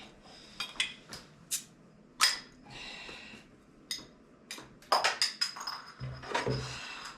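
A string of irregular clicks and knocks, a few of them ringing metallic clinks, with a dense cluster of them about five seconds in.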